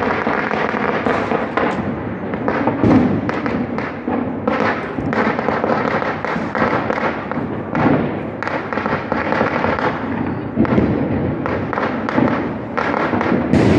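Firecrackers and fireworks going off all over the town, a dense run of overlapping cracks and bangs with several louder booms among them.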